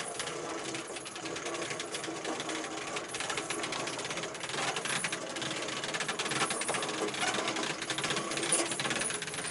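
Rapid, continuous ratchet-like clicking from a sailboat's winch and furling gear as the in-mast furling mainsail is hauled out of the mast. The clicking gets a little busier in the second half.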